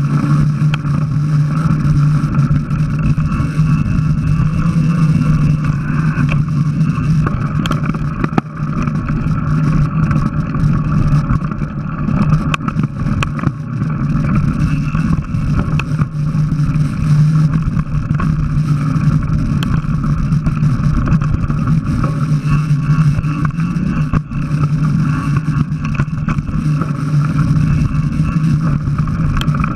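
Mountain bike ridden along a dirt trail, heard through a bike- or helmet-mounted action camera: a steady droning rumble of wind and tyres, with a few brief knocks and clatters from the bike over rough ground.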